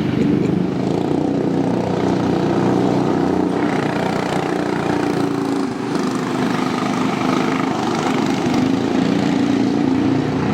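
Cyclekart engines running as the karts are driven around the track. The engine note rises and falls with the throttle, dipping briefly about six seconds in.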